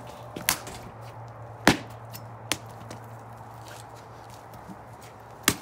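Machete chopping into a trimmed young coconut on a concrete slab: four sharp, separate strikes spread over a few seconds, the loudest about a second and a half in.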